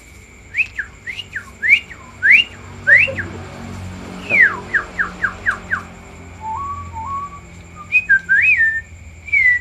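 A man imitating birdsong by whistling. It opens with a run of quick rising whistles, then a long falling slur and a rapid series of short falling notes, then lower two-step whistles and a warbled phrase near the end.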